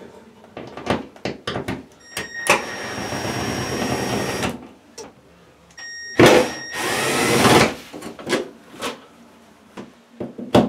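Cordless drill running in two bursts of about two seconds each with a steady whine, backing out the screws that hold a light fixture to the wall. Short clicks and taps from handling come between the runs.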